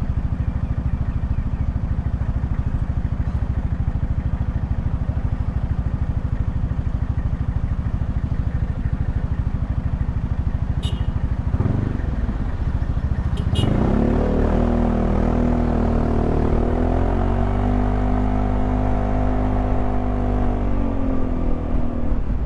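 Yamaha XMAX 300 scooter under way: a steady low road and engine rumble, then a little over halfway in the engine note rises in pitch and holds steady.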